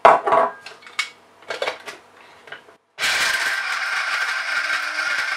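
Walnuts and almonds rattling into an electric coffee grinder and the lid clicking on, then about three seconds in the grinder's motor starts and runs steadily, chopping the nuts.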